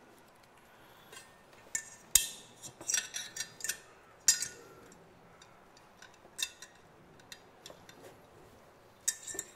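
Scattered clicks, taps and clinks of small hard objects being handled and set down, loudest about two seconds in and again around four seconds in.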